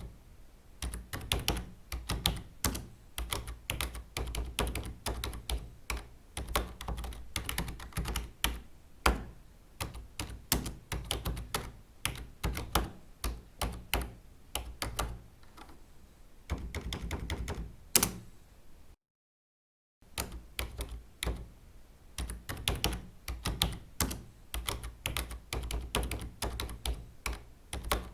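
Typing on a computer keyboard: fast, irregular key clicks and the thud of keys bottoming out. About two-thirds of the way through it cuts to a second of dead silence, then the typing picks up again.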